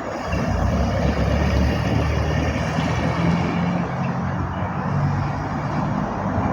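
Car engine running at a steady speed, growing louder about half a second in; the misfire has been cured.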